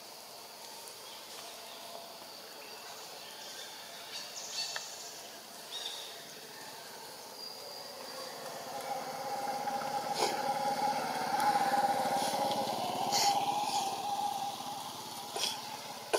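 A motor vehicle's engine hum that swells and fades over several seconds in the middle, over steady insect buzzing. A few short sharp sounds come near the end.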